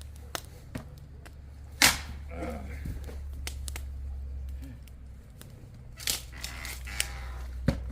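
A few sharp cracks and clicks, the loudest about two seconds in, with brief murmurs of a voice over a steady low hum.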